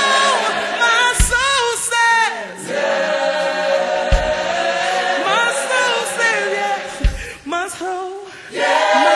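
Slow gospel worship song sung by voices together, with a low thump about every three seconds.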